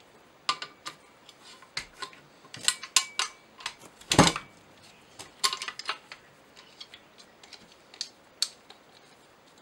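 Metal clicks and clacks as an Atlas bipod with an Arca rail adapter is handled and mounted on a rifle chassis's Arca rail, with one heavier knock about four seconds in.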